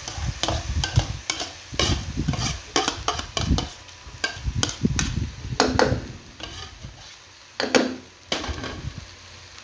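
Breadfruit and salted pigtail frying in seasoning in a pot, sizzling while a spoon stirs and scrapes them, with repeated knocks against the pot. Two louder knocks ring out, about six and eight seconds in.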